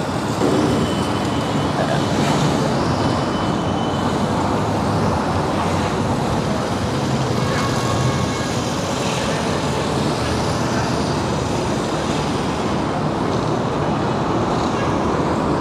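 Steady road traffic noise from a busy expressway: a constant wash of passing cars and buses.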